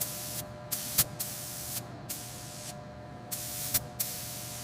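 Aerosol spray hissing in a series of short bursts with brief gaps between them, as a protective coating is sprayed on.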